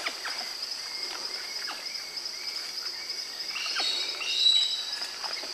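Forest insects, crickets or cicadas, keep up a steady, finely pulsing high-pitched drone, with scattered light clicks and snaps. A few short high chirps come about two-thirds of the way in.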